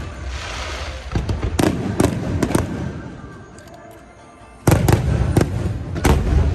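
Aerial fireworks shells bursting overhead, sharp bangs over a low rumble. Several cracks come about a second and a half in, then it eases, then a sudden louder cluster of big booms starts about two-thirds of the way through.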